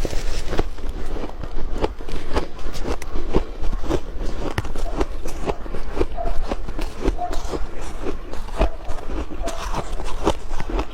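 Ice crunching between the teeth as a person bites and chews it: a dense, uneven run of crunches that goes on without a break.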